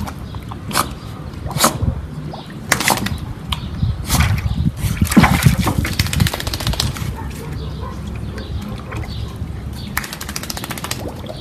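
Water sloshing and splashing in a galvanized metal washtub as a Jack Russell terrier moves about in it and scrambles out, loudest about four to six seconds in.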